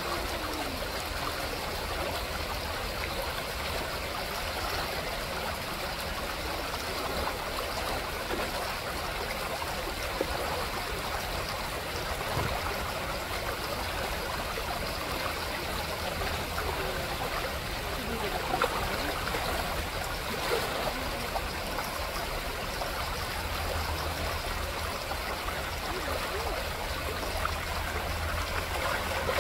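Shallow gravel creek running steadily over stones, with a few brief splashes as spawning chum salmon thrash in the water.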